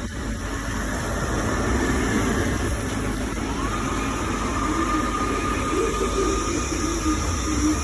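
Xiaomi Mi Robot Vacuum-Mop Essential's suction motor running steadily, with a whine that rises in pitch a few seconds in.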